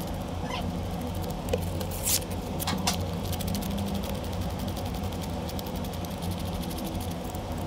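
Fine sandpaper rubbing lightly on a small blue carving-wax model, over a steady low hum. A few sharp clicks come about two and three seconds in.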